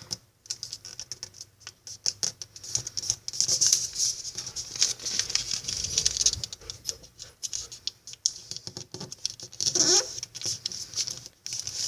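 A sheet of origami paper being folded and creased by hand: a dense run of small crinkles, rustles and clicks as the paper is bent and pressed flat.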